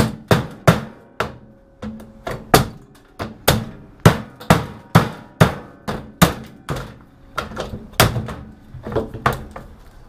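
Repeated hammer blows on a microwave oven's fan motor and its mounting, knocking the fan motor out to salvage its copper. The strikes are sharp and come roughly twice a second, unevenly spaced.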